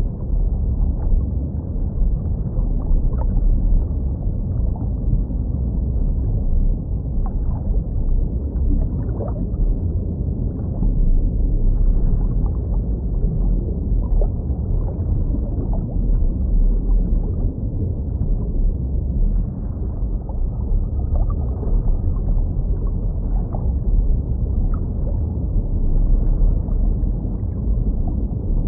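Underwater ambience of a fish tank: a steady, deep rumble of moving water, with scattered small bubbling pops and gurgles throughout.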